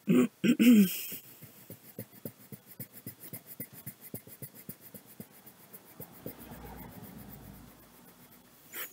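Coloring on paper: quick, rhythmic back-and-forth scratching strokes, about five a second, with a softer rubbing stretch near the end. It opens with a short vocal sound and ends with a single knock.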